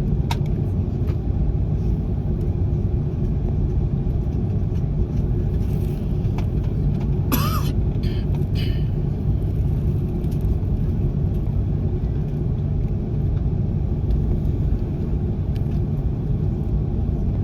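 Steady low rumble of an Airbus A330-300's engines and airflow heard inside the passenger cabin, with a faint steady hum in it. A brief louder noisy sound cuts in once about halfway through.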